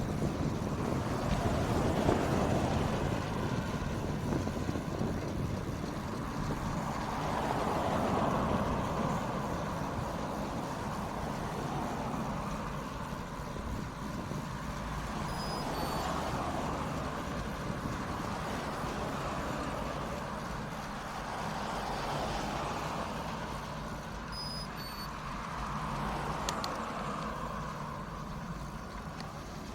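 Wind and road noise while riding a tandem bicycle, swelling and fading every several seconds. Two short two-note electronic beeps sound about nine seconds apart.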